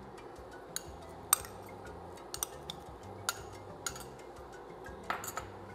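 A metal spoon clinking against a small glass bowl and a stainless steel pot while chopped chives are scraped into the pot: a handful of short, sharp clinks, the loudest about a second in and a quick cluster near the end.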